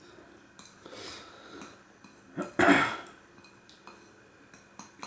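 A person coughing once, short and loud, about halfway through, with a few light clicks around it.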